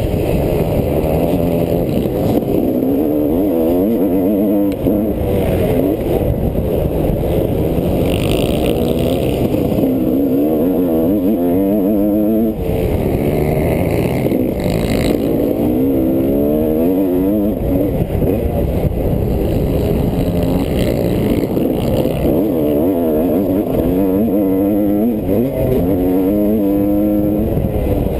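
Motocross dirt bike engine heard up close from on board, revving hard and climbing in pitch over and over as the rider works through the gears, falling back between pulls.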